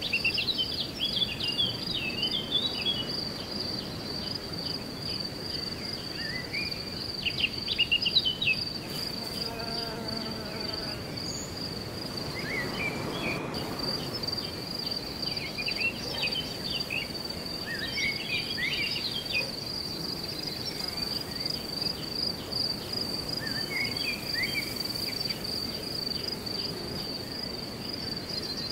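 Outdoor nature ambience: a steady, high-pitched insect trill runs throughout, with clusters of short bird chirps around it over a low background hiss.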